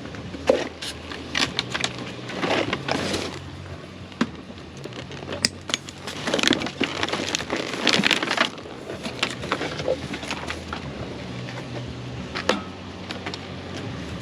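Irregular cracks, knocks and scraping rustles of junk being handled and shifted, over a steady low hum.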